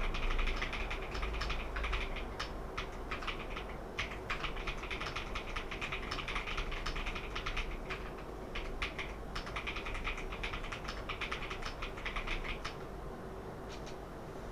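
Keys of a hot-swap mechanical numpad being typed on: a quick, uneven run of keystroke clacks with brief pauses.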